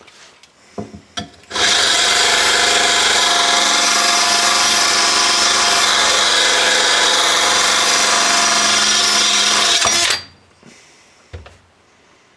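Electric drill running a blade-sharpening adapter that grinds the steel cutting edge of a lawn mower blade. The steady grinding starts about a second and a half in and stops abruptly about ten seconds in, with a few light knocks before it.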